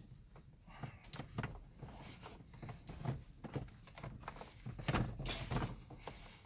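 Hand ratchet clicking in short strokes as a bolt is run in, about two to three clicks a second, with a louder clatter of knocks about five seconds in.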